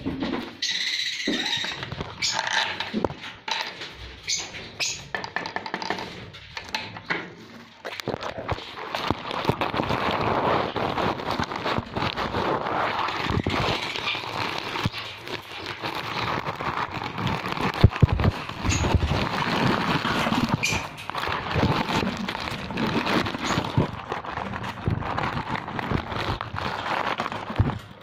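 Close handling noise: a wooden nest box being worked open and the straw nesting material inside rustled and crackling right at the phone, with scattered knocks.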